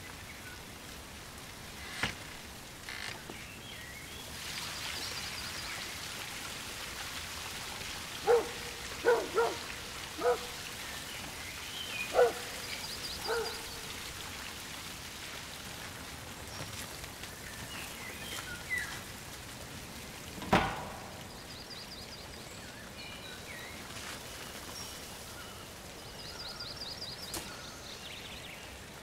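Outdoor rural ambience: a steady soft hiss with small birds twittering now and then. About a third of the way in, an animal gives half a dozen short calls in quick succession. A single sharp knock comes about two-thirds of the way through.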